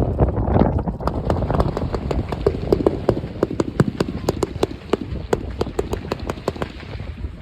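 Fireworks: a rapid, irregular string of sharp cracks and pops, several a second, over a continuous low rumble of distant bangs and wind on the microphone.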